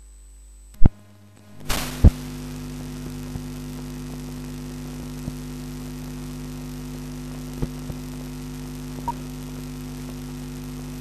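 Steady electrical hum with a hiss, starting about two seconds in between two loud pops. A few fainter clicks follow later.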